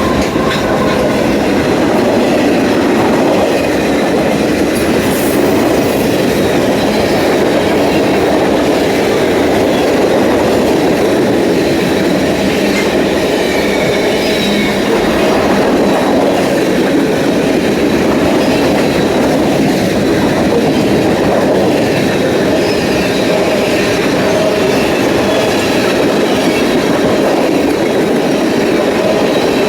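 Loud, steady noise of a BNSF freight train's cars rolling past on the rails.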